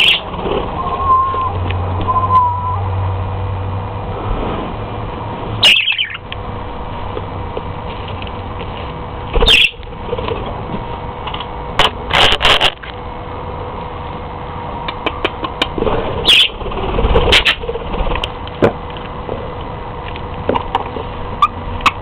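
Budgerigars giving a few short chirps, several seconds apart, with sharp clicks among them over a faint steady hum.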